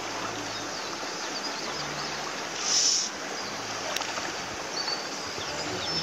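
Hooked rainbow trout splashing and thrashing at the pond surface, loudest about three seconds in, over a steady rush of wind on the microphone. Faint high chirps can be heard in the background.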